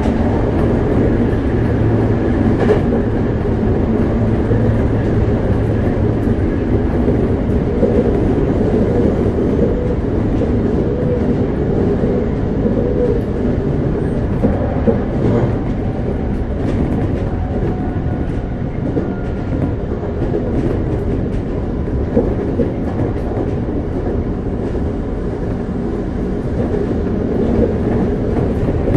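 Running noise inside a Toei 5300 series commuter train car at speed: a steady rumble of wheels on rail, with occasional short clacks over the track.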